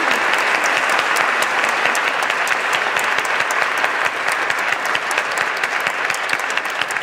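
A congregation applauding, many hands clapping at once in a dense, steady patter.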